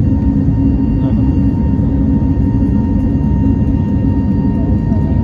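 Airliner cabin noise while climbing after takeoff: the engines make a steady, loud low rumble, with a faint, steady high whine over it.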